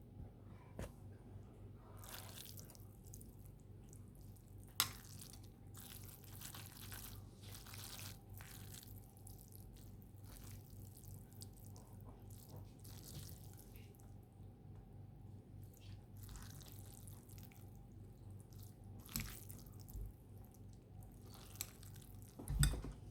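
Someone eating naengmyeon, Korean cold noodles: irregular wet slurping and mouth sounds from noodles and broth over a low steady hum. There is a sharp clink about five seconds in and a heavier knock near the end.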